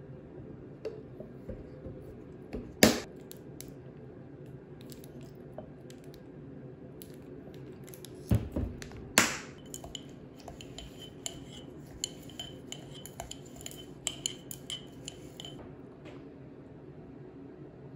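Wooden spoon knocking and scraping inside a glass jar of salted wasabi leaves, with two sharp knocks about three seconds in and about nine seconds in, then a run of small clinks against the glass. A low steady hum lies underneath.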